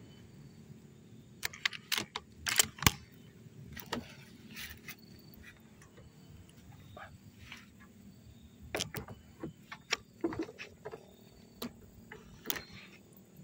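Irregular sharp clicks and knocks, several in quick succession about two seconds in, the loudest of them, and another cluster later.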